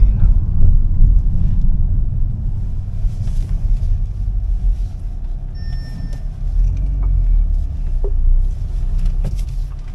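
Low, steady rumble inside the cabin of a VW Golf 8 GTI creeping along at parking speed, its 2.0-litre turbocharged four-cylinder running lightly. A short electronic beep sounds about halfway through.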